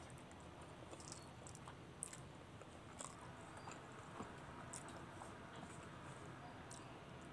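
A person quietly chewing a mouthful of masala Maggi instant noodles, with scattered soft clicks, the sharpest about two seconds in.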